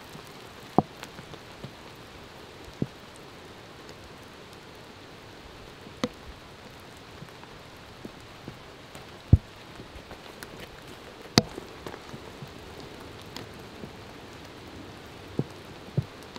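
Steady rain falling in woodland, with scattered single heavy drops landing sharply now and then.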